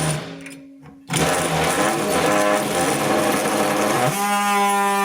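Electric power tool motor running, its pitch unsteady and rough at first, then settling about four seconds in into a steady, even hum.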